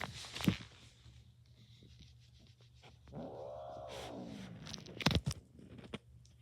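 A cat meowing once: one long call that rises and then falls in pitch, about three seconds in. Sharp knocks or clatters come near the start and again about five seconds in.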